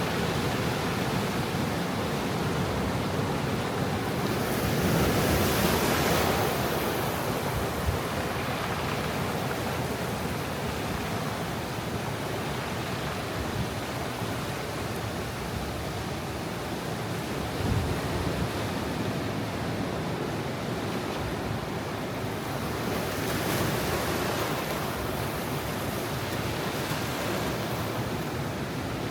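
Ocean surf washing onto a rocky shore at high tide: a steady wash of water noise with a wave breaking and swelling louder about five seconds in and another just before the end.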